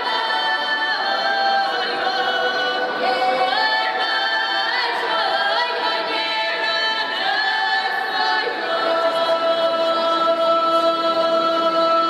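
Women's folk ensemble singing a Russian folk song a cappella in several-part harmony, the voices sliding from one held note to the next. The song closes on a long held chord over the last few seconds.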